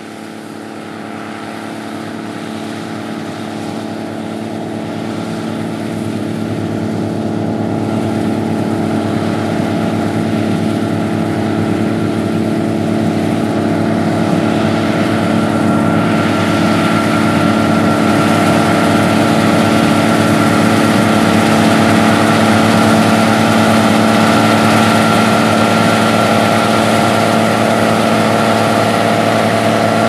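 Gleaner R75 combine harvester's diesel engine and threshing machinery running steadily under load while harvesting wheat, growing louder as the machine comes closer. A steady high whine joins about halfway through.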